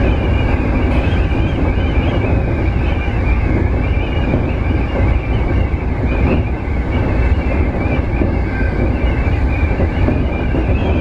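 JR East E231-series electric commuter train running at speed between stations, heard from inside the front car: a steady, loud rumble of wheels on rail with a wavering high whine over it.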